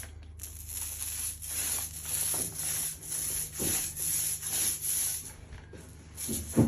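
Paint roller coating a wallpapered wall with epoxy resin, rubbing back and forth in rhythmic strokes about twice a second. A sharp knock near the end.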